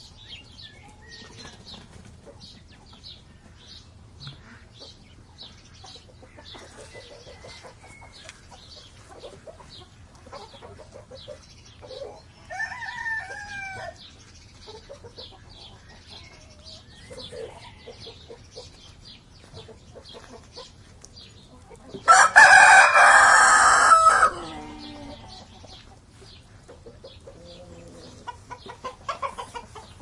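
Farmyard birds: small birds chirping throughout, a shorter pitched call about twelve seconds in, and a rooster crowing loudly for about two and a half seconds, about two-thirds of the way through.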